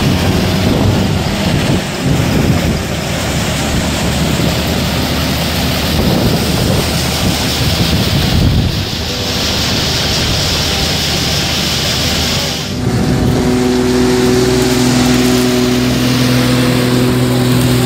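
Engine-driven farm machinery running loudly with a heavy rushing noise. The sound changes abruptly about eight and thirteen seconds in, after which a steady engine hum dominates.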